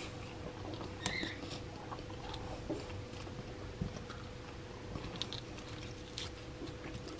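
Faint crunching and light clicks of crisp bacon over a steady low hum, with a short high chirp about a second in.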